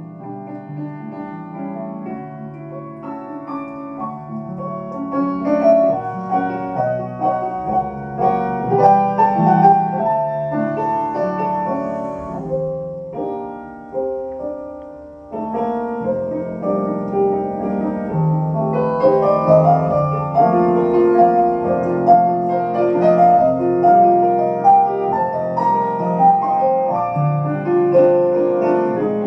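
Solo piano music, growing gradually fuller over the first several seconds, thinning and softening briefly around the middle, then picking up again.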